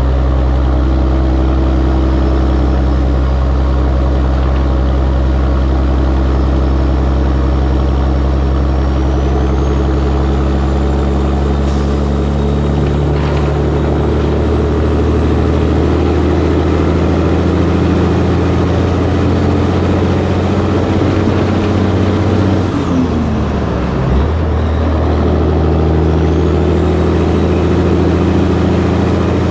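Peterbilt 362 cabover's Caterpillar 3406B diesel engine running steadily under load at highway speed. A faint high whine rises twice. About 23 seconds in, the engine's pitch dips and then climbs back up.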